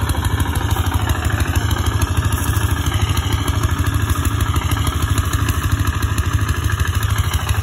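A small engine running steadily, a constant low, rapidly pulsing throb.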